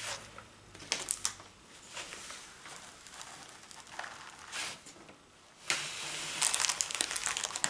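Rustling and crinkling of a diamond-painting canvas and its release paper as the rolled canvas is unrolled and pressed flat by hand. It comes in a few short bursts, with the longest and loudest stretch near the end.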